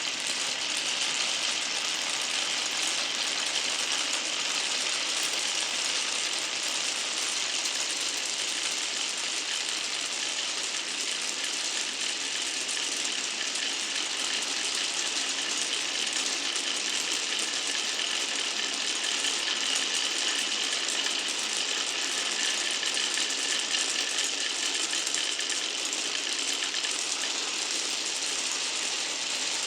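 Many glass marbles rolling and clacking along a wooden marble run, a steady, dense rattle of small knocks.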